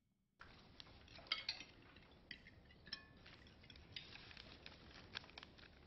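Faint, scattered clinks of cutlery against dishes and glassware at a quiet dinner table, heard in a TV episode's soundtrack played at low volume. The sound starts about half a second in.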